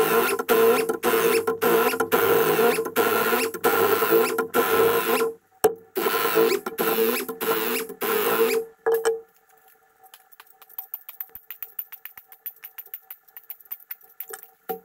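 Pneumatic impact wrench hammering in repeated bursts as it breaks loose and spins out cylinder head bolts, stopping a little past halfway. After that there is only faint rapid ticking.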